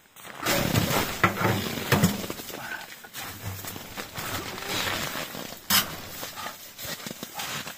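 Handling noise of metal stovepipe sections being fitted onto a tent stove: knocks and clanks of the pipe over rustling of tent fabric and winter clothing, with a sharp knock about six seconds in.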